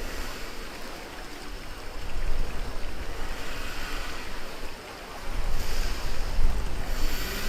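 Rushing, splashing whitewater of a river-rapids raft ride, with wind buffeting the microphone. The rush swells and eases a few times.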